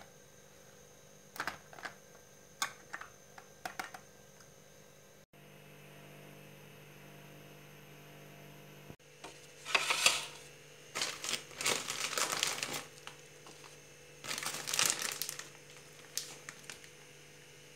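Crinkling and rustling from material being handled, with a few light ticks, over a faint steady hum. The rustles come in short spells and are louder and longer in the second half.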